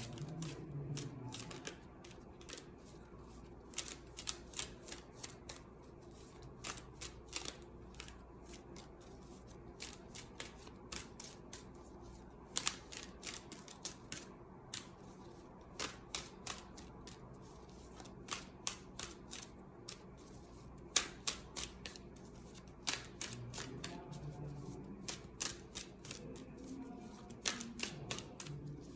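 Tarot cards being shuffled by hand: irregular clusters of sharp card clicks and snaps, a few at a time with short pauses between.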